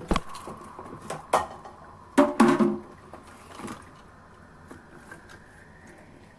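Celery stalks being handled and set down on a cutting board: a few sharp knocks, with the loudest cluster about two seconds in.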